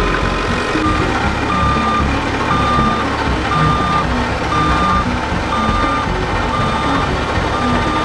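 Reversing alarm on road-construction machinery beeping about once a second, starting about a second in, over the steady rumble of heavy diesel machines working the gravel road base.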